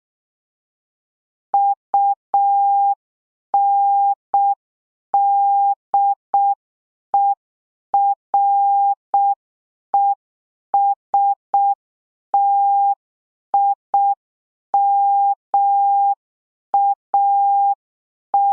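Morse code practice tone: a single steady mid-pitched beep keyed in dits and dahs, with wide gaps between letters. It spells out U-N-D-E-R-E-S-T-I-M-A-T, the word 'underestimate', starting about a second and a half in.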